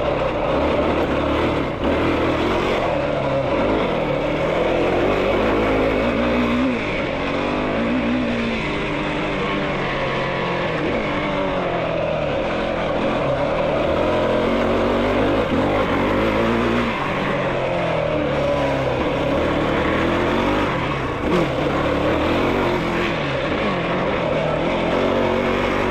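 Yamaha YFZ450R quad's single-cylinder four-stroke engine being ridden, its revs rising and falling repeatedly as the throttle is worked.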